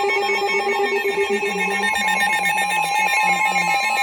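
Weather radio's electronic alert alarm: a fast, even buzzing pulse over several steady pitches, unbroken, with a tone near 1 kHz growing stronger near the end.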